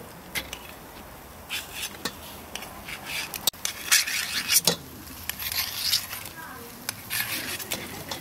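Grilled meat pieces pushed off with a knife and dropped into an enamel pot: scattered knocks and clinks of metal and meat against the enamel.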